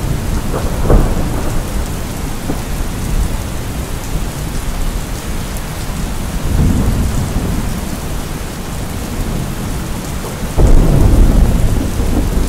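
Steady rain with rolling thunder; a louder rumble of thunder comes in suddenly near the end.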